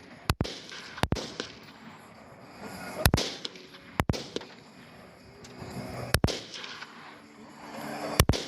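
Rifle fire from an AR-style rifle and an SKS: about six single shots at uneven intervals, with no explosion from the target.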